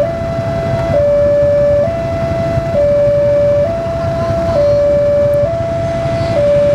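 Railway level-crossing warning siren sounding a two-tone hi-lo pattern, alternating between two close pitches about once a second, over a low rumble.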